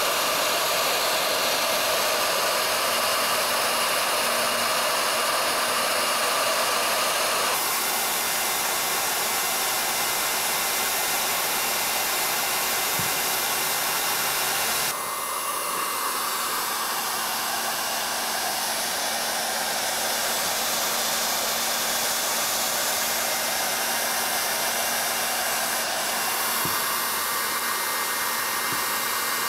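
Electric hot air gun running steadily, its fan blowing a stream of hot air while a hot-glue stick is melted into a mesh patch on a cracked plastic tank. The tone and level shift slightly about a quarter and about halfway through.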